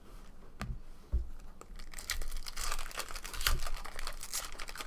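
A trading-card pack wrapper being torn open and crinkled by hand: a few light clicks, then from about two seconds in, a steady run of crackly rustling.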